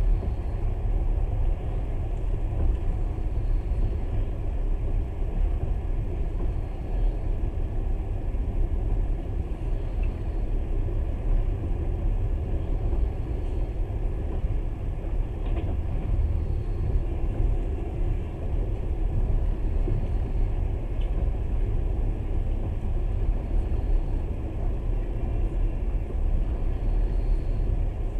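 Steady low rumble of a moving passenger train heard from inside the carriage, the wheels running on the rails, with a few faint ticks.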